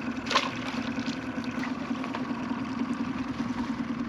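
Boat motor idling steadily at trolling speed, a low pulsing drone. A brief rising high-pitched squeak sounds once just after the start.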